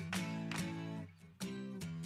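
Music with strummed guitar chords, briefly dropping away about a second in before the strumming resumes.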